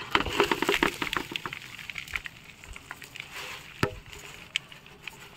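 Dry, lumpy potting soil being tipped and pushed into a plastic pot around a rose's root ball: a dense crunchy rustle and patter of falling clumps for the first two seconds or so, thinning to scattered clicks, with one sharper knock about four seconds in.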